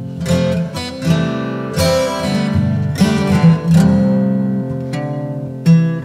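Background music: acoustic guitar playing picked notes and strummed chords, each chord ringing on before the next.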